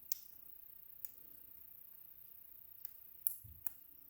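About five small, sharp clicks, spread irregularly over a few seconds, as a shim is worked into an Ikon WSW lock cylinder.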